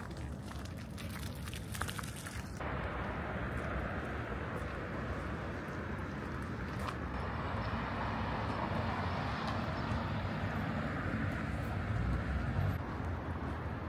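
Ambient sound of a crowd of visitors on a walking tour, an even hubbub with a few footsteps or clicks at first. About two and a half seconds in the sound changes abruptly: the hiss drops away and a fuller, slightly louder murmur takes over.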